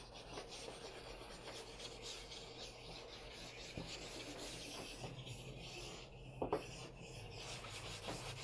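A pale stick rubbed in short, faint strokes over paper covered in chalk pastel, with one brief louder sound about six seconds in.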